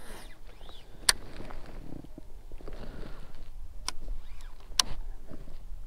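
Handling noise from casting and reeling a baitcasting rod and reel from a kayak: a steady low rumble with three sharp clicks, about a second in, near four seconds and near five seconds.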